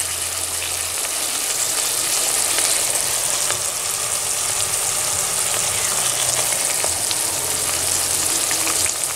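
Sliced carrots, onion and green chilli peppers sizzling in olive oil in a pot: a steady frying hiss. A low steady hum runs underneath.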